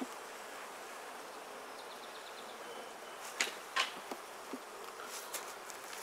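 Honeybees buzzing steadily around an open top-bar hive, with two sharp wooden knocks a moment apart just past halfway as the top bars are set in place.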